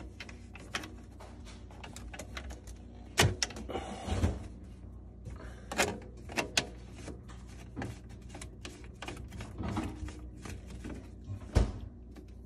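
Irregular plastic knocks and clicks as a white PVC drain pipe and its fittings are handled and pushed onto a garbage disposer's discharge outlet, with a brief scrape just after four seconds; the sharpest knocks come a little after three seconds, around six seconds and near the end.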